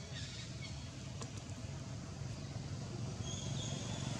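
Low, steady hum of a motor vehicle engine running, slowly getting louder toward the end. A few faint clicks about a second in.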